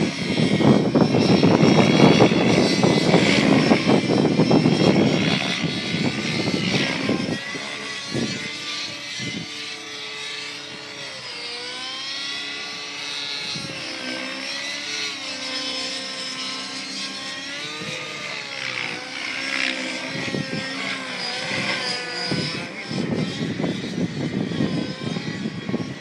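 700-size radio-controlled helicopter flying aerobatics, its engine and rotor whine rising and falling in pitch as it swoops. Wind buffets the microphone with a loud rumble over the first several seconds and again near the end.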